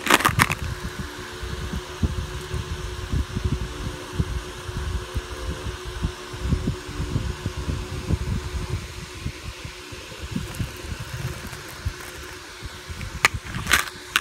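Lead airgun pellets rattling and clinking in a small plastic tub as they are tipped out, once right at the start and again about 13 seconds in. In between, soft handling bumps against the microphone over a steady low hum.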